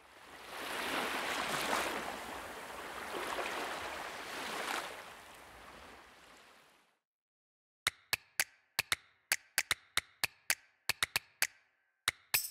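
Sea waves washing in and ebbing away, surging twice before fading out about seven seconds in. After a short silence a dry clicking beat of about three sharp knocks a second starts a music track.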